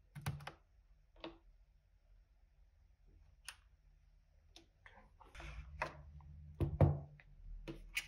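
A few small, sharp clicks as the SIM tray is worked out of the back edge of a ThinkPad T14s Gen 2 laptop, then rustling handling noise with a louder knock about seven seconds in as the laptop is handled.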